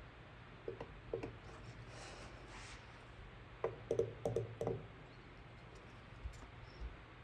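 Light clicks and taps of a plastic-welding iron working against an ATV's plastic body panel, a couple about a second in and a quick cluster of five or six about four seconds in, over a steady low hum.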